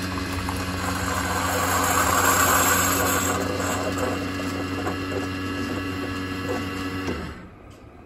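Keurig Mini coffee maker's pump running during a brew: a steady hum with a rushing hiss over it that swells a couple of seconds in, then cuts out near the end as the brew finishes.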